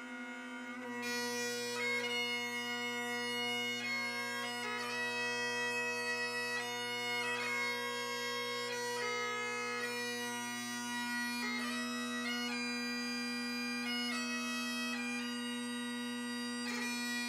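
Bagpipes playing a slow melody over a steady drone.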